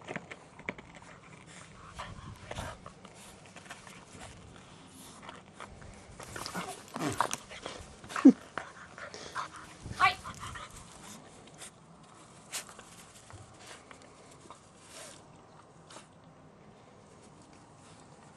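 Staffordshire bull terrier puppy playing with a ball: scattered knocks and scuffles, busiest around the middle, with two louder short sounds about eight and ten seconds in, the first dropping in pitch. Play dies down to occasional clicks near the end.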